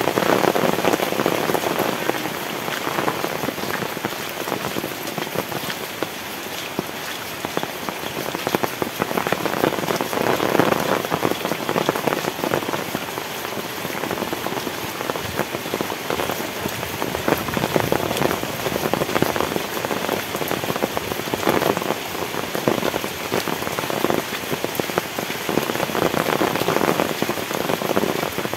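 Heavy tropical rain pouring down, a dense patter of drops hitting nearby surfaces that swells and eases every few seconds.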